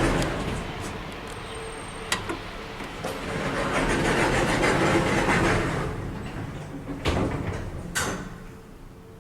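Passenger lift doors sliding, a rush of noise that swells and fades over a few seconds. Sharp clicks of the door mechanism come about two seconds in and again twice near the end.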